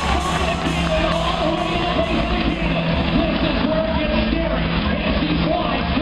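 Loud music with singing over a steady beat.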